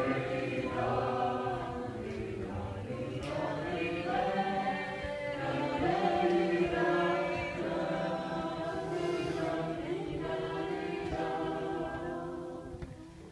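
Several voices singing together in long held notes that move in pitch, fading away near the end.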